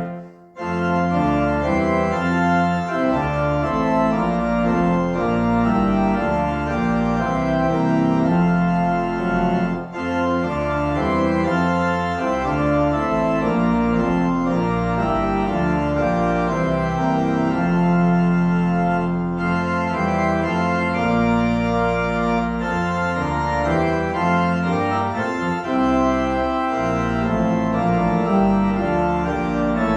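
Organ playing music in held chords over a moving bass line, with a brief break just after the start.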